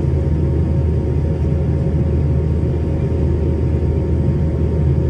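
Steady, loud cabin drone of a McDonnell Douglas MD-90 climbing out after takeoff: its rear-mounted IAE V2500 turbofans and the airflow, heard from inside the cabin, with a thin steady whine running through the low rumble.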